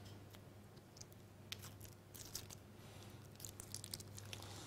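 Foil wrapper of a Laughing Cow cheese portion being peeled open: faint, scattered crinkles and small tearing crackles over a low steady hum.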